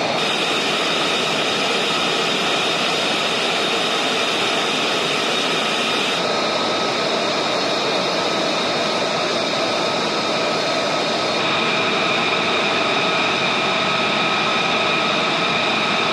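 Jet engines of F-35A fighters running on the flightline: a loud, steady jet noise with several high whines. The mix of whines changes abruptly about six and eleven seconds in.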